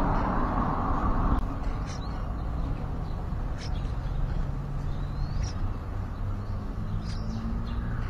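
Birds chirping: short high chirps every second or two, with one rising whistle about five seconds in, over a steady background noise that drops about a second and a half in.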